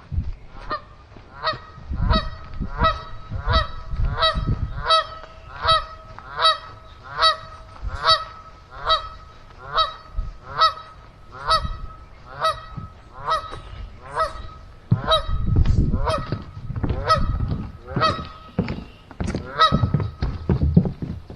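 A goose honking over and over in a steady series, about one honk a second, with low thuds underneath.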